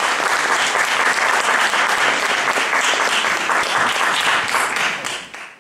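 Audience applauding after a live band's song, fading out near the end.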